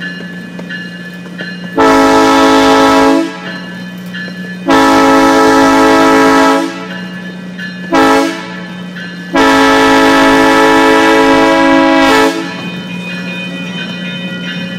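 Train horn on a one-third-scale park railroad locomotive, sounding four blasts in a long, long, short, long pattern, the standard grade-crossing signal. A steady low hum runs between the blasts.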